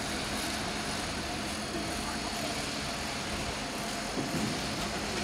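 Steady outdoor town-square background noise: a constant hum with faint distant traffic and a few small clicks.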